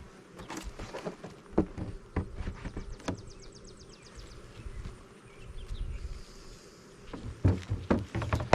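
Agitated honeybees buzzing around an opened hive, under scattered knocks and clicks, the loudest cluster near the end.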